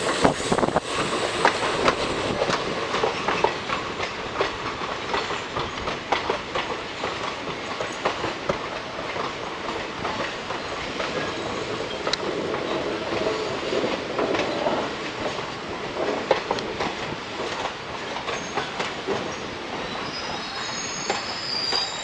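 Passenger train's wheels clattering and rattling over the rails as it rolls slowly into a station. A thin high wheel squeal comes in near the end.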